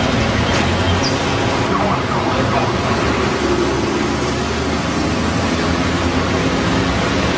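Steady, loud road traffic noise with a low engine rumble underneath.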